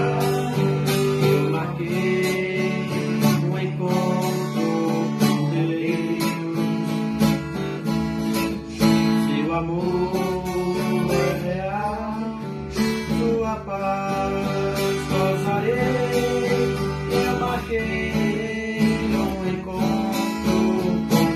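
Viola caipira and acoustic guitar (violão) playing together, strummed chords with plucked melody notes.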